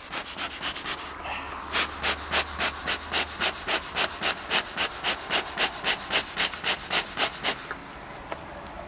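Bee smoker's bellows being pumped, giving a steady run of short air puffs at about three to four a second. The puffs grow louder about two seconds in and stop near the end.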